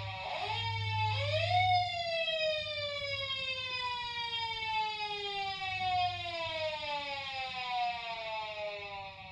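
A sound effect: a pitched, siren-like tone that swoops up twice near the start, then slides slowly and steadily down in pitch for several seconds, over a steady low hum.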